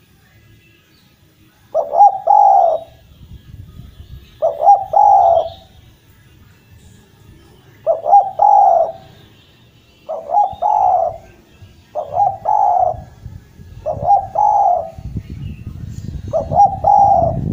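Spotted dove (Javanese derkuku) cooing over and over: seven short phrases of two or three notes each, one about every two seconds. Faint chirps of small birds sit behind it, with a low rumble near the end.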